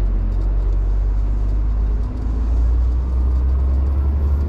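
Scania R450 truck's straight-six diesel and road noise heard inside the cab while driving on the motorway: a steady low drone that strengthens slightly about halfway through, with a faint whine slowly rising in pitch near the end.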